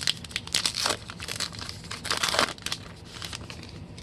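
Foil wrapper of a baseball card pack crinkling and tearing as it is opened, in two louder rustling bursts about a second apart.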